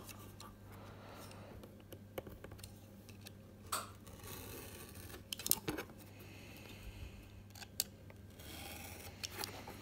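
Craft knife blade scoring lines into thin card along a steel ruler: a few short, faint scratching strokes, with light clicks and taps from the knife and ruler between them.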